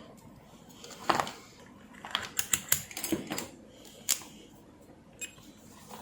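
Small sharp clicks and taps at irregular moments, one about a second in, a quick run of them from about two to three and a half seconds, and another near four seconds: hand tools working on an LED TV backlight strip while a single LED is taken off it.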